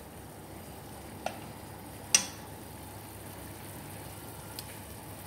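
Three short, sharp clicks, the loudest about two seconds in, over a steady background hiss.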